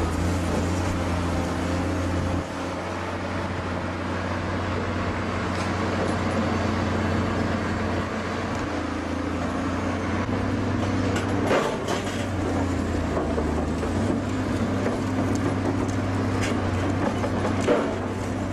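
A heavy vehicle's engine running with a steady low drone, with a few sharp clanks near the middle and near the end.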